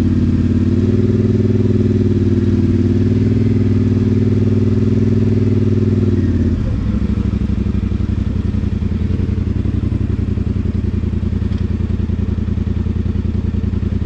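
Polaris Sportsman 850 ATV's engine with an MBRP exhaust running steadily on a trail ride. About six and a half seconds in, the engine note drops and settles into a lower, pulsing run.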